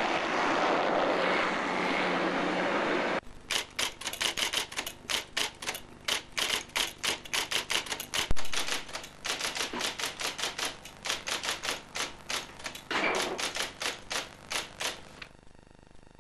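Steady street traffic noise for about three seconds, then electric typewriter keys clattering in a fast run of strokes, about four or five a second, with a short rasping noise near the end before the typing stops.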